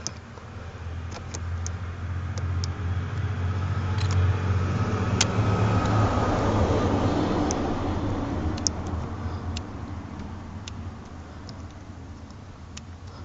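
A motor vehicle passes by, its noise swelling to a peak about six seconds in and fading away, with a few scattered sharp clicks.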